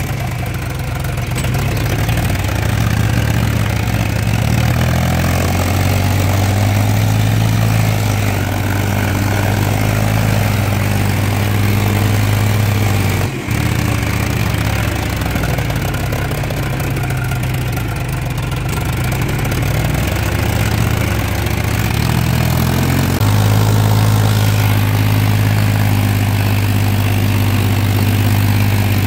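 Diesel tractor engine running steadily while working a flooded paddy field, heard from the seat close to its vertical exhaust stack. There is a brief dip about halfway through. Near the end the engine gets louder and its pitch shifts.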